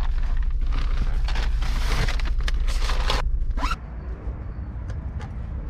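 Fabric delivery bags being handled and repacked: dense rustling and scraping with a zipper-like rasp, over a steady low hum. About three and a half seconds in it cuts off sharply to quieter outdoor ambience with a few faint clicks.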